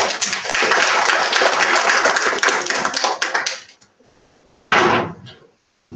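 Audience applauding, the clapping dying away after about three and a half seconds, then a brief loud noise about a second later.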